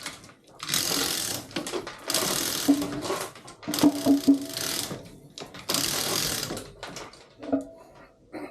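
Lifting gear ratcheting as a heavy cast diesel cylinder head is hoisted to be turned over: four rattling bursts of about a second each, with a few short metallic clunks between them.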